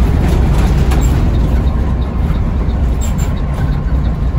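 Intercity bus engine and road noise heard from inside the cab while the bus is under way: a steady low rumble.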